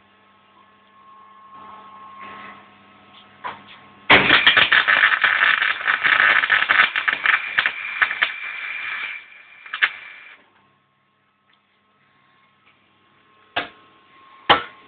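MIG welder arc crackling steadily for about six seconds as a weld bead is run, starting about four seconds in and cutting off suddenly. Two short sharp clicks follow near the end.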